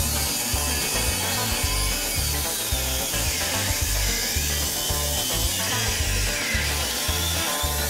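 Power saw cutting through the factory exhaust pipe, a steady metal-cutting whine whose pitch dips twice as it bites, over background music with a rhythmic bass line.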